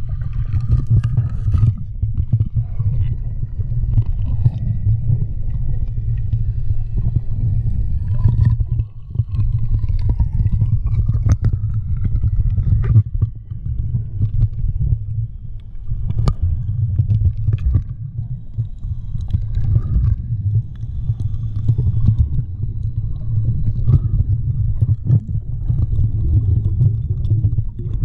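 Muffled underwater sound through a GoPro's waterproof housing: a steady low rumble of water moving around the submerged camera, with faint gurgling and a few sharp clicks.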